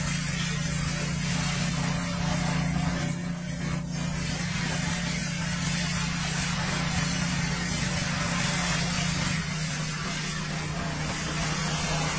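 Pressure washer spraying foam: a steady hiss of spray over a constant motor hum.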